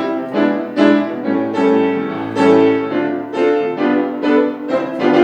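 Piano playing a simple tune in even notes, about two a second, over a low held bass note.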